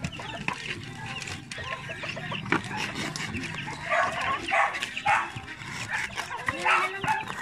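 Chickens clucking, with a run of louder short calls in the second half.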